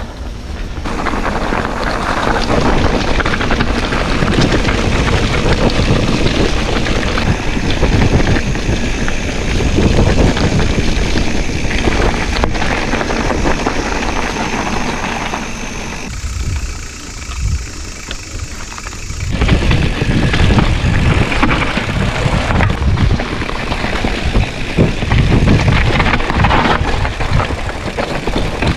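Mountain bike ridden fast down a dirt singletrack: wind rushing over the microphone, tyres rolling and the bike rattling over roots and rocks. It eases off for about three seconds a little past halfway.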